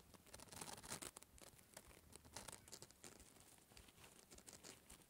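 Near silence: room tone with faint, scattered light ticks and scratches.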